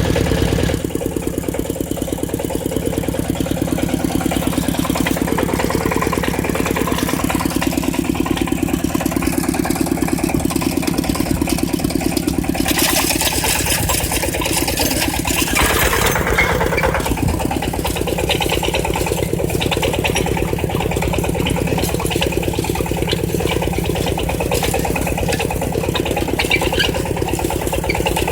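Walking tractor's engine running steadily while ploughing, with a fast, even chugging. About halfway through, a hissing noise rises over it for a few seconds.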